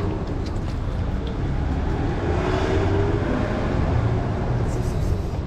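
Motor traffic rumbling steadily, with a vehicle passing and swelling a little louder about halfway through.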